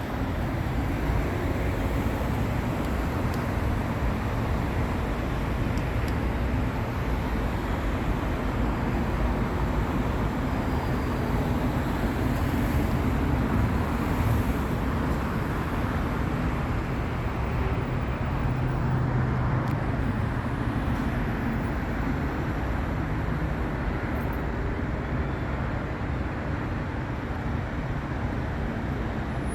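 Steady road traffic noise from vehicles passing on the highway ramp, swelling a little as some go by.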